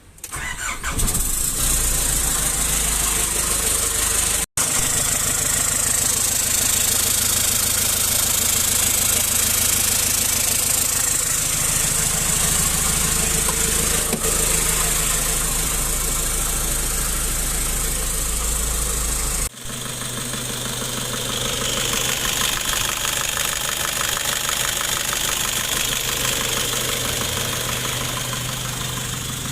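Nissan Patrol ZD30 diesel engine starting about half a second in and then running steadily after its injection pump and engine block replacement. The sound breaks off abruptly twice, at about four and a half and nineteen and a half seconds.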